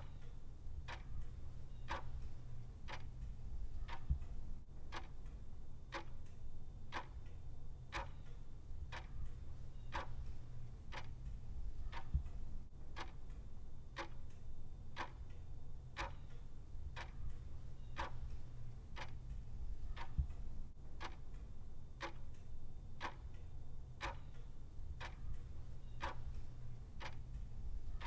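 Clock ticking steadily, about two even ticks a second, over a low steady hum.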